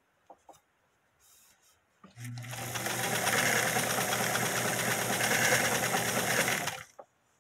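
Singer Facilita electric sewing machine running steadily, stitching a seam through knitted fabric. It starts about two seconds in, runs for close to five seconds and stops near the end, with a few faint clicks of fabric handling before it starts.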